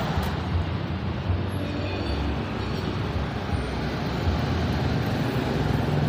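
Steady low rumble with an even background hiss, no distinct strokes or knocks.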